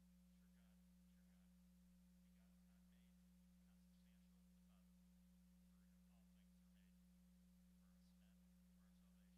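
Near silence: room tone with a faint steady low hum throughout.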